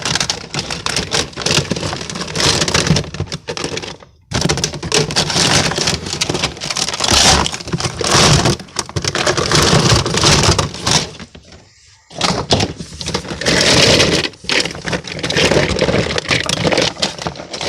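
Hands rummaging through a toy box, plastic toys clattering and rattling against each other, with two short pauses.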